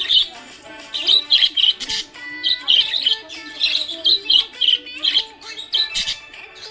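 Small pet parrots chirping rapidly in quick runs of short, high tweets, over background music with held notes.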